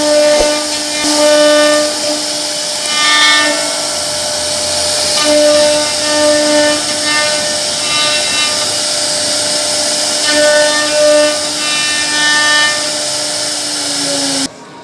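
CNC wood router's spindle cutting wood: a steady hiss with a high whine that swells and fades as the bit works through the panel. It cuts off abruptly near the end.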